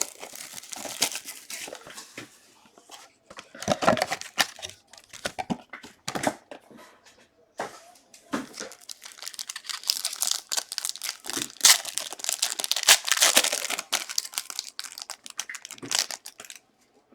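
Plastic wrapping on a sealed box of trading-card packs being torn open and crinkled: irregular ripping and crackling that comes and goes and is loudest in the second half, stopping shortly before the end.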